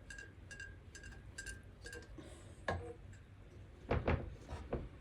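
A serving utensil scraping and knocking against the wok and serving plate as chicken curry is spooned out: faint light ticks in the first two seconds, then a few sharp knocks, the loudest a pair about four seconds in.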